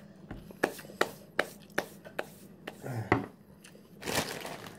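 Crisp crunches of potato chips being chewed, evenly spaced at about two or three a second, followed by a short breathy rush near the end.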